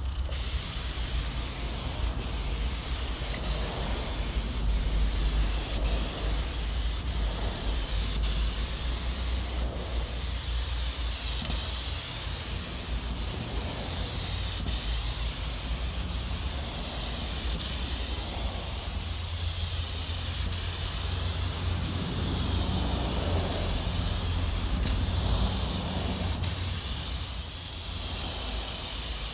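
Gravity-feed compressed-air paint spray gun hissing steadily as it sprays paint onto a car's body panels, the hiss swelling and fading with each back-and-forth pass of the gun, over a low steady rumble.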